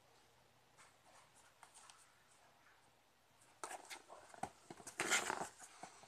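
A kitten pawing at a long cardboard box with holes cut in it, claws scratching and scraping the cardboard. A few faint scrapes first, then a busier run of quick scratches and taps over the last two or three seconds.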